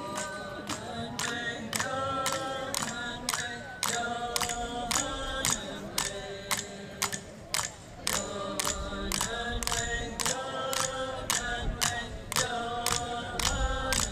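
A group of voices chanting a repeated song in unison over a steady beat of sharp clicks, about two strokes a second.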